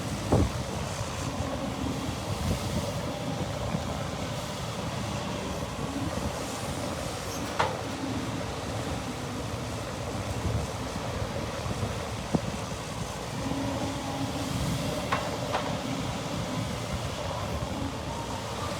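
Dump truck engine running steadily, with a few sharp knocks from the truck along the way.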